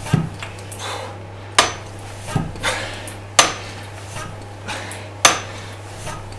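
Hatsan PCP hand pump being stroked against high tank pressure of about 200 bar, with a sharp metallic clack at each stroke about every two seconds and softer knocks and rasps between. A steady low hum runs underneath.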